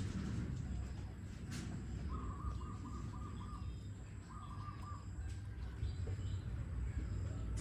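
An animal call: two short rattling trills, the first about two seconds in and the second right after it, over a low steady rumble.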